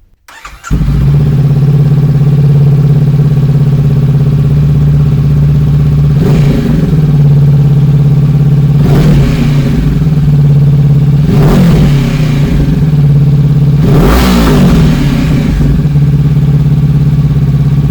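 A 2023 Honda CB500F's parallel-twin engine, breathing through a Mivv GP Pro slip-on exhaust with its dB killer removed, starts about a second in and idles loudly. It is revved four times, each rev rising and falling back to idle.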